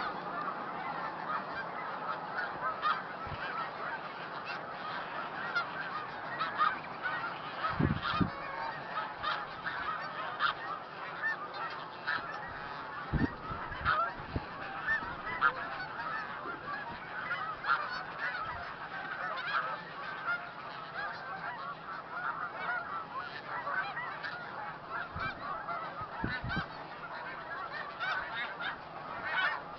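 A large flock of snow geese calling continuously: a dense chorus of many overlapping honks and yelps with no pause.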